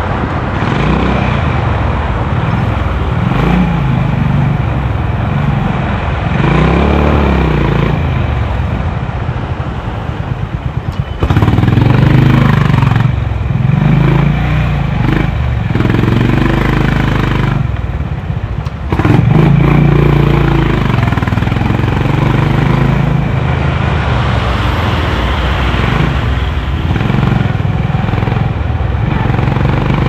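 Honda CB350's single-cylinder engine and exhaust under way, its note climbing and falling as the rider pulls through the gears. The power drops briefly a few times, around 11, 13 and 18 seconds in, and then comes back hard and loud.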